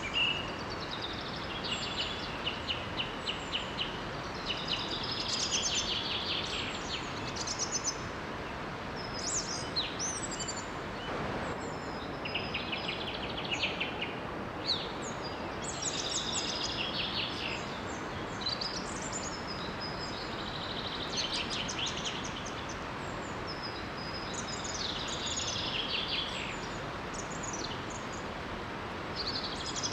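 Songbirds singing in short trilling and chirping phrases that recur every few seconds, over the steady rush of a small waterfall.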